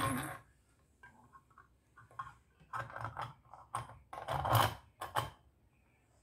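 Light clicks and scrapes of a brass chandelier bottom cap being slid up the centre rod and fitted against the fixture body, with a louder rubbing scrape about four and a half seconds in.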